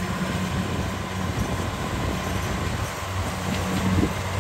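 Kubota 70 rice combine harvester's diesel engine running steadily as the machine drives across the paddy, a constant low drone.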